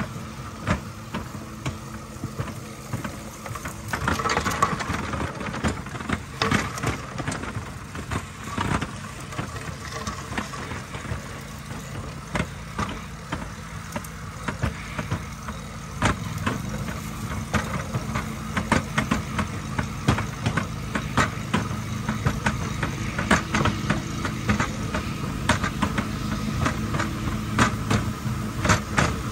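Rail bike's steel wheels rolling along old railroad track: a steady rumble with frequent sharp clacks and knocks, growing louder about halfway through.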